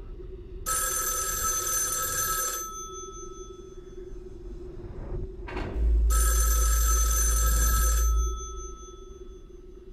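An old rotary-dial telephone's bell ringing twice, each ring about two seconds long, with a pause of about three seconds between. Under it runs a low steady drone, and a deep rumble swells under the second ring.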